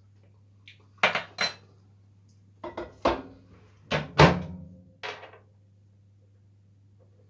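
Kitchenware being handled: a run of sharp clanks and clinks, about seven in four seconds, as dishes and utensils knock together, over a steady low hum.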